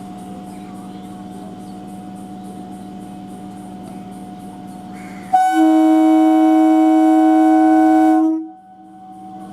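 Electric multiple unit train standing with a steady electrical hum; about five seconds in, a loud train horn sounds one long steady blast of about three seconds and cuts off, then the hum returns.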